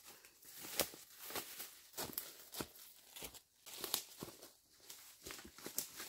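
Footsteps crunching on dry leaf litter and plants rustling as a person pushes through forest undergrowth, in short irregular crackles about once or twice a second.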